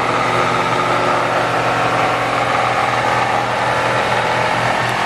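A motor running steadily: a constant droning hum that does not change.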